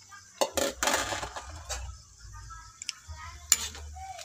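A cooking utensil knocking and scraping against a wok full of diced carrots and chopped chicken gizzards. There is a cluster of sharp knocks about half a second in, and single clinks later on.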